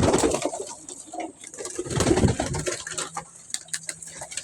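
Domestic pigeons cooing in a loft, a throaty burst at the start and another about two seconds in, with scattered sharp clicks and taps in the second half.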